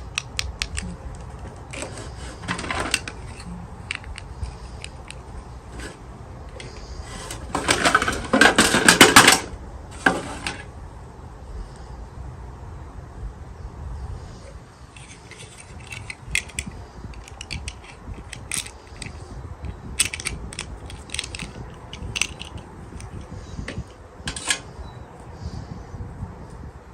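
Small plastic toy pieces and packaging handled by hand: scattered clicks and taps, with a louder two-second run of rapid clicking and rustling about eight seconds in.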